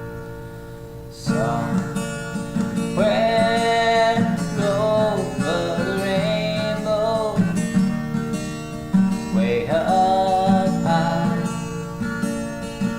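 Background music: a strummed plucked-string instrument, with a wordless sung melody gliding above it.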